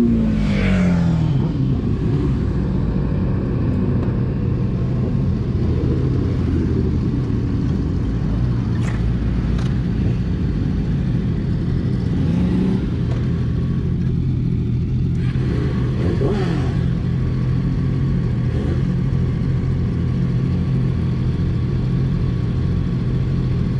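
Yamaha R6's inline-four engine breathing through an Akrapovič full-system exhaust. Its revs fall away in the first second or so as the bike slows, then it idles steadily.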